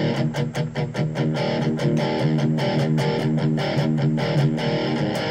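Electric guitar played through a Blackstar ID:CORE Stereo 10 V2 practice combo amp on its distorted channel, in quick repeated picked strokes over sustained chords. The ISF tone control is set for a thicker, softer distortion.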